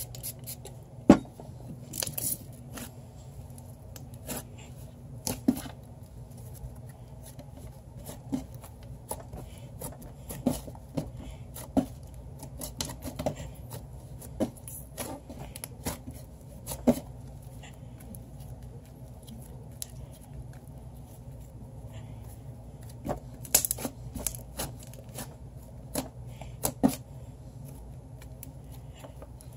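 Slime dusted with baby powder being kneaded and pressed against a tabletop: irregular sticky pops and crackles, some much sharper than others, over a faint steady hum.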